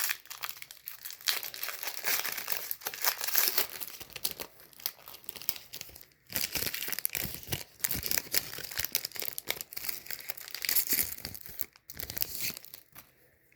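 Plastic trading-card pack wrapper being torn open and crinkled by hand, a dense crackle with two short pauses that stops just before the end.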